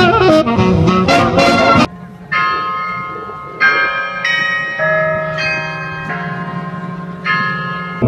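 Brass-band jazz music cuts off abruptly about two seconds in. Carillon bells of the bell tower then ring, about six single notes struck at different pitches at a slow, uneven pace, each left to ring on.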